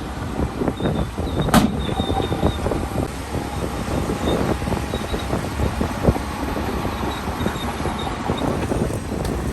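Bulldozer's diesel engine running under load with a continuous metallic clatter and knocking, and a sharp metal clank about one and a half seconds in, with another around six seconds in.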